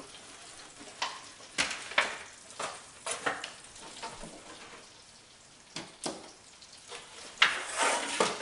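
Scattered clicks and knocks of an aluminium foil tray and chopsticks being handled at the stove, over a faint steady sizzle of hot oil.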